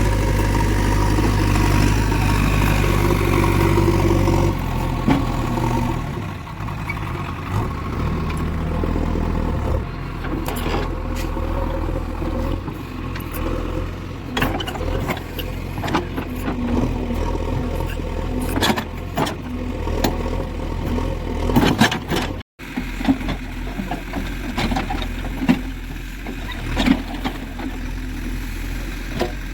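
Diesel engine of a JCB 3DX backhoe loader running under load, louder for the first five seconds and then settling lower, with short sharp knocks and clanks scattered through the second half.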